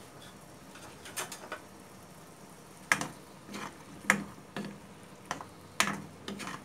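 A wooden spatula knocks and scrapes against a black kadai while it turns gulab jamuns in sugar syrup. There are about eight sharp, irregular knocks, the loudest about three and four seconds in.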